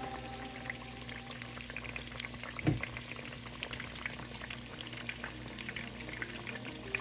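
Cornflour-coated chicken pieces deep-frying in hot oil: a steady crackling sizzle of many small pops. A single dull thump comes about three seconds in.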